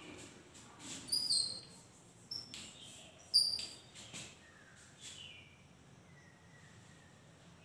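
Birds chirping: short, high calls, the loudest about a second in and again about three and a half seconds in, with softer falling whistles after them.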